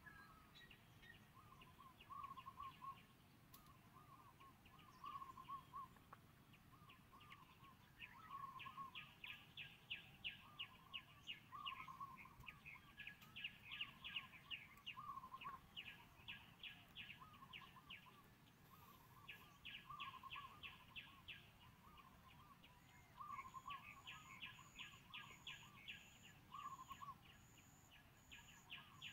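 Faint birdsong: one bird repeats a short warbled phrase every second or two, while another gives bouts of fast, higher trills. A faint high pulsing tone joins near the end.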